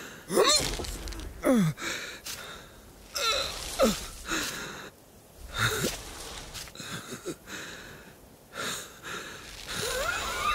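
An animated sheep's voiced grunts, huffs and wheezy breaths, one every second or two, several sliding down in pitch, with a longer wavering groan near the end.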